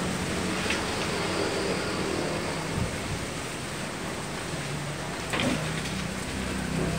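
Wind and light drizzle: a steady hiss, with a few brief louder gusts or rustles.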